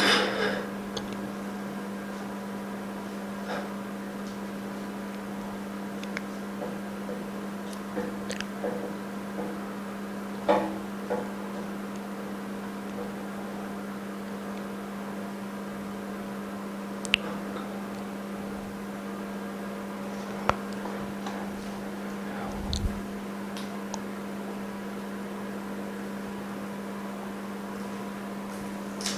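Steady hum of running repair-shop machinery, with scattered light clicks and knocks as a phone screen and cover glass are handled and set into a metal alignment mould on a laminating machine; the loudest knock comes about ten seconds in.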